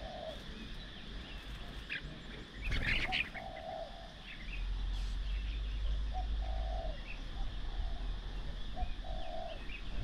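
Doves cooing in short, repeated low notes, with small birds chirping around them. There is a brief louder bird sound about three seconds in, and a low rumble comes in about halfway through.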